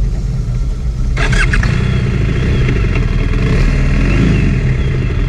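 BMW GS motorcycle's boxer-twin engine running as the bike rolls along at low speed, heard up close beside the cylinder. There is a short rattling burst about a second in.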